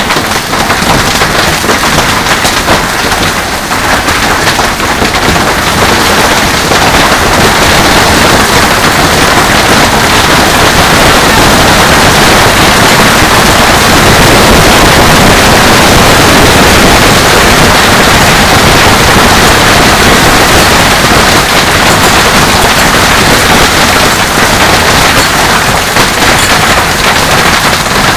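Hailstorm: a dense, continuous clatter of hailstones pelting the covered patio and splashing into a swimming pool. It is very loud throughout, builds over the first several seconds and is heaviest around the middle.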